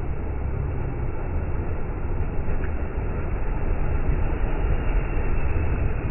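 Ford Ranger 2.2 diesel engine working under load as its tyres churn through deep mud, a steady heavy low rumble with mud splatter.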